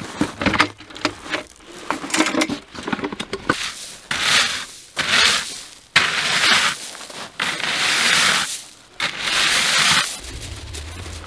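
Quick clicks and knocks of a plastic barrel's metal clamp-ring lid being undone. Then a canoe paddle blade scraping and raking through loose beach shingle in several long strokes.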